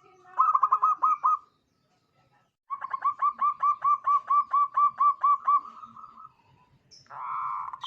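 Zebra dove (perkutut) singing: a short run of quick clipped cooing notes, a pause, then a longer run of about five notes a second that ends in a drawn-out note. A harsher buzzy note follows near the end.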